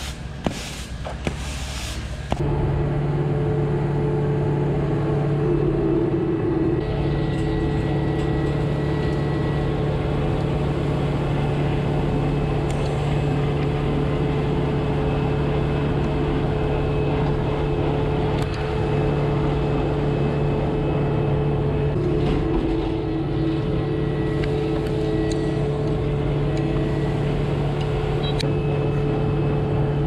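A push broom scraping briefly across a concrete floor, then a skid steer loader's engine running steadily at a constant speed while it works in a pile of wood shavings.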